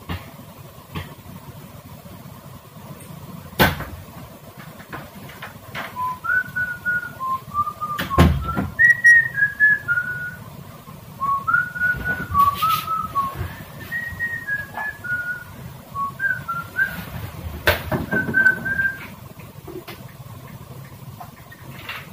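A person whistling a tune: a string of short notes stepping up and down, starting about six seconds in and stopping a few seconds before the end. A few sharp knocks and one heavy thump about eight seconds in sound alongside it.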